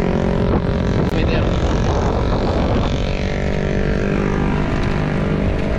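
A motor vehicle's engine passing close by on the road, its pitch falling steadily over the second half, over a steady low rumble of road noise.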